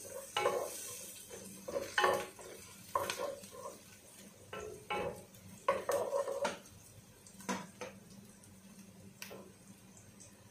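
Wooden spatula stirring onion and garlic frying in oil in a granite-coated pot, with irregular scrapes and knocks against the pot, most of them in the first eight seconds, over a light sizzle.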